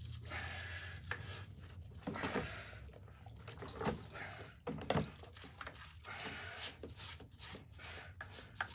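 A brush scrubbing a greasy engine part in hot soapy water: irregular rubbing strokes with some sloshing of the water.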